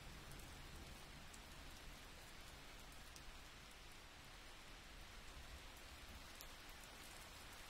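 Near silence: a faint steady hiss with a few tiny ticks.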